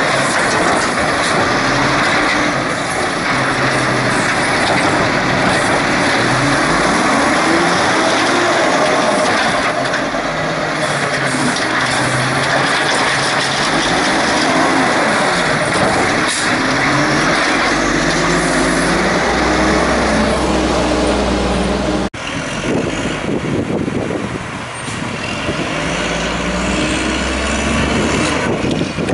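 Natural-gas (LNG) engine of a 1994 WhiteGMC WX-64 garbage truck running loud, its speed rising and falling repeatedly as it drives the hydraulics of the Amrep automated rail arm lifting and dumping a recycling cart. About three quarters of the way through there is an abrupt cut, and the engine carries on a little quieter.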